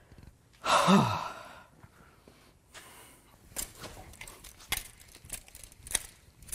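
A man's heavy sigh about a second in, then scattered light metallic clicks and knocks as a stuck dipstick tube is wiggled and pulled in a Gen2 LT1 V8 block.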